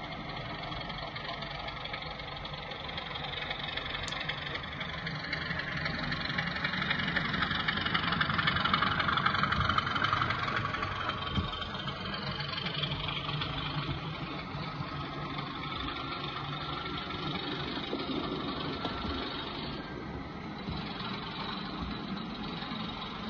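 Diesel engine sound from a sound-fitted model locomotive, running steadily, growing louder about six seconds in and easing back after about eleven.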